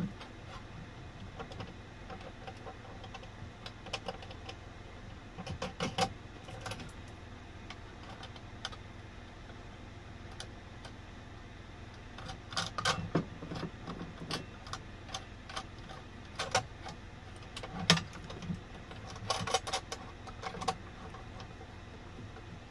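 Irregular clicks, taps and knocks of a CB radio's metal mounting bracket and clips being handled and fitted, in small clusters with pauses between, over a steady low hum.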